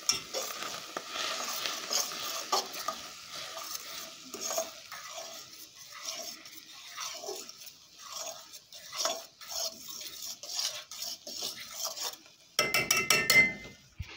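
A utensil stirring and scraping sautéing vegetables in a pan on the stove, with a sizzling hiss under the strokes. Near the end comes a short, louder metallic clatter that rings briefly.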